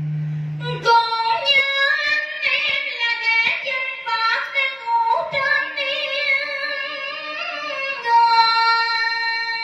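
A woman sings a cải lương (Vietnamese reformed opera) melody in a high voice through a microphone. The phrases waver and glide in pitch, and near the end she holds one long note. At the start a low steady accompaniment tone sounds for under a second, then stops as she comes in.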